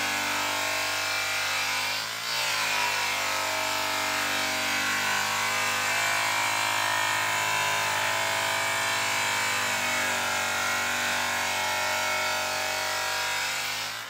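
High-speed grinder-style rotary polisher spinning a buffing wheel against a sanded metal tank, a steady motor whine. Its pitch dips and recovers briefly about two seconds in and again near the end as the wheel loads against the metal.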